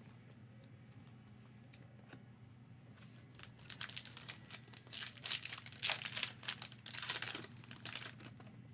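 A foil trading-card pack wrapper being torn open and crinkled, a run of crackling starting about three and a half seconds in and dying away near the end.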